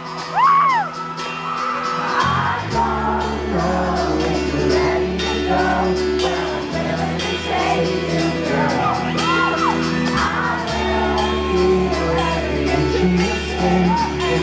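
A live pop-rock band starting a slow song: about two seconds in, a bass line and held keyboard chords come in under a male lead voice singing. High whoops and shrieks from fans rise over the music near the start, midway and near the end.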